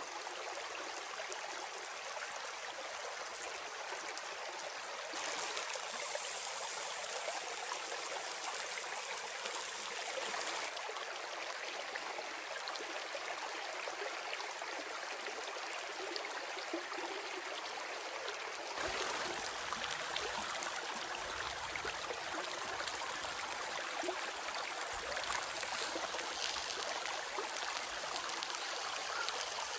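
Steady rushing of running water with no distinct events; its level and tone shift abruptly three times, becoming fuller and deeper about two-thirds of the way through.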